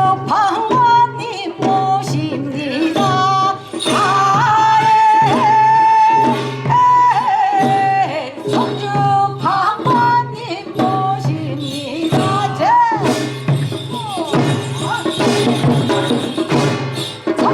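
Korean folk singing in sorigut style with samulnori percussion: a solo voice sings long notes that bend and waver in pitch, over steady drum and gong strokes.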